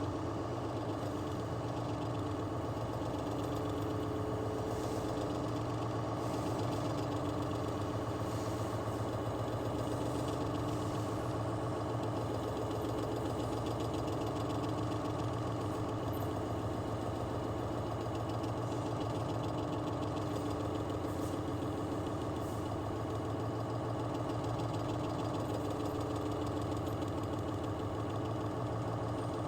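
Conventional engine lathe running steadily, a constant machine hum with a low drone.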